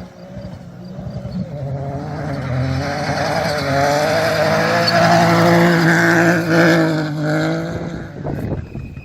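A rally car at full speed approaching and passing. The engine note climbs and steps between gears under a rush of wind and tyre noise, is loudest about six seconds in, then drops away as the car goes past.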